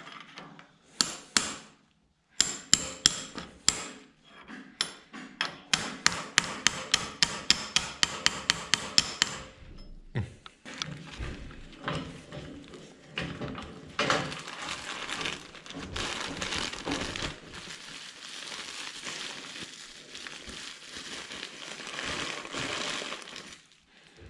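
A quickening run of sharp metal-on-metal taps, up to about four a second, that stops about nine seconds in, followed by a steady scraping, rubbing noise of metal parts being handled.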